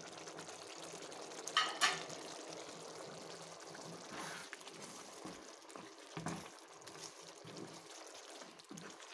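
Thin flour-and-sugar slurry pouring into a pot of simmering beef stew in a steady trickle. A brief, sharp clatter comes about two seconds in, likely the container against the pot.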